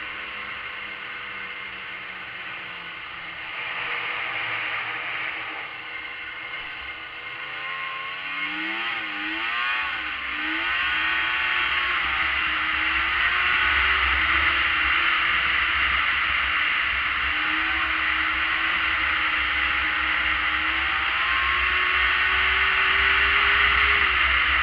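Arctic Cat ZRT600 snowmobile's three-cylinder two-stroke engine running under way, with a strong rushing hiss of wind and track. About a third of the way in its pitch wavers up and down, then it climbs steadily and grows louder as the sled accelerates.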